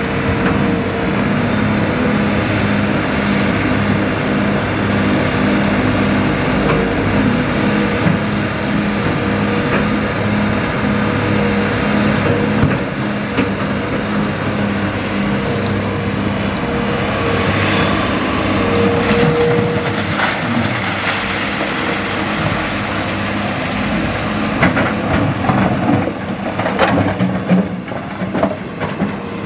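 Hitachi EX200-5 hydraulic excavator's diesel engine running steadily under working load. Sharp knocks and clattering of river stone come in the last few seconds.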